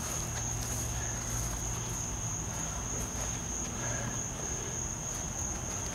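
Crickets trilling in one steady, unbroken high-pitched tone.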